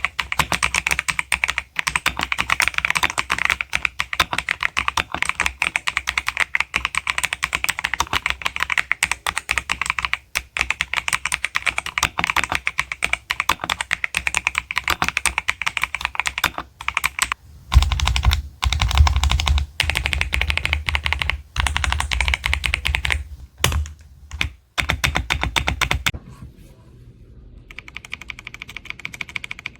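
Fast, continuous typing on a MageGee 68-key 60% gaming keyboard with magnetic switches, a rapid stream of key clicks. A little past the middle a deep rumble sits under the clicks for several seconds; after a short pause the typing resumes more softly near the end.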